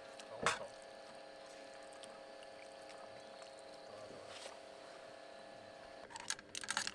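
Metal tongs tossing spaghetti in a steel wok: a soft scrape and squish about half a second in and again near four and a half seconds, then a quick run of metal clicks near the end as the tongs knock against the pan. A faint steady hum runs underneath.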